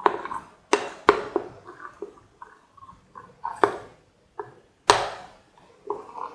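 A spoon stirring thin semolina-yogurt batter in a bowl and knocking against the bowl with sharp, briefly ringing clinks, about five loud ones and several softer ones. The loudest comes about five seconds in.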